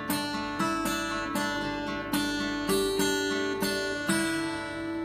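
Acoustic guitar strummed in the closing chords of a song, a strum about every half second, with the last chord left ringing and fading near the end.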